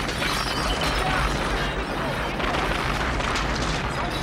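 Film soundtrack of a house explosion: a continuous low rumbling blast with dense crackling and clattering of debris.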